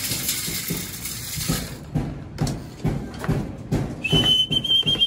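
Grain feed pouring out of a scoop, then a few soft knocks, and near the end a person's short, high whistle, rising slightly: a pigeon keeper calling his birds in to feed.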